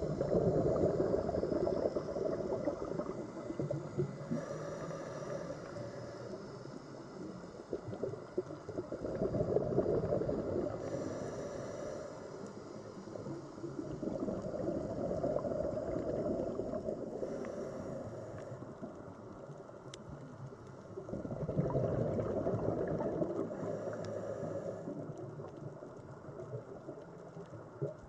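Scuba diver's regulator breathing underwater. Exhaled bubbles gurgle and rumble in swells every six to seven seconds, with fainter higher hissing between them.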